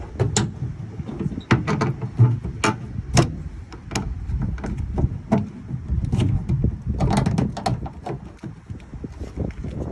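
Repeated sharp clicks and knocks of plastic and metal as a pickup tailgate's handle cover is pried loose from its tight retaining clips, with low handling noise in between.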